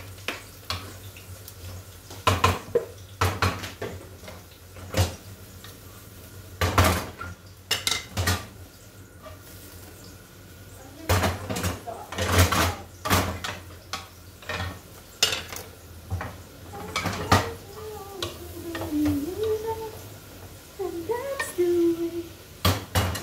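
Irregular clatter of cookware: a wooden spatula knocking and scraping in frying pans, with clinks of dishes, sharp knocks coming every second or two in clusters.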